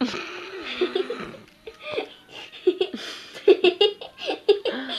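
People laughing and giggling, with some unclear talk mixed in. In the second half the laughter comes as a run of short laughs.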